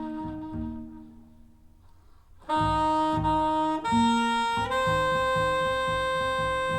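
Jazz saxophone and plucked double bass duet played back over hi-fi loudspeakers and heard in the room. A held saxophone note fades to a brief near-pause, then about two and a half seconds in the saxophone returns with a new phrase of long held notes over plucked bass.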